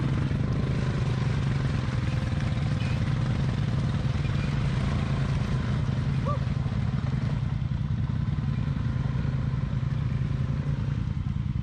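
ATV engine running steadily as the four-wheeler pulls out of a mud rut and drives off along a muddy trail.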